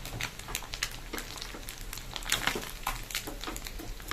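Small anchovies (netholi) deep-frying in hot oil in a kadai, with irregular crackling and spitting over a steady sizzle.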